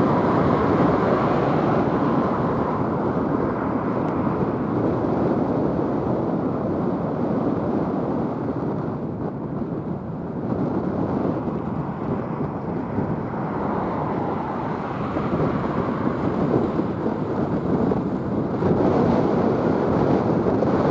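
Jet engine noise from a Boeing E-3 Sentry's four TF33 turbofans as the aircraft climbs away: a steady deep rumble that eases a little about halfway through and swells again near the end.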